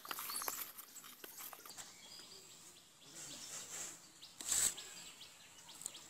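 Peeled pointed gourds clicking and tapping against each other and the bowl as a hand arranges them, in a quick run of small knocks. After that, faint outdoor background, broken once about four and a half seconds in by a short, loud, noisy burst.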